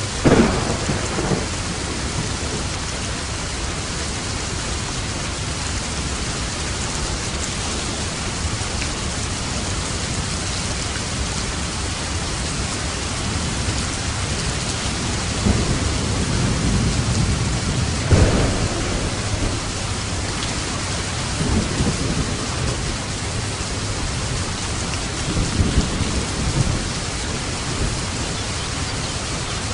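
Steady rain with rolling thunder: a sharp thunderclap right at the start, a longer rumble building about halfway through that peaks in a crack, and another rumble near the end.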